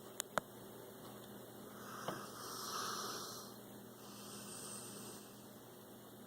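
Sleeping pit bull breathing in soft, hissing snores that swell and fade slowly, one breath every couple of seconds. Two sharp clicks just after the start and another about two seconds in.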